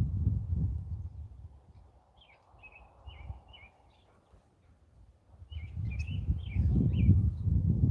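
Small birds chirping in short, quick, wavering notes, in two runs of calls. Between them, gusts of low rumbling noise rise and fade, the loudest sound present and typical of wind on the microphone.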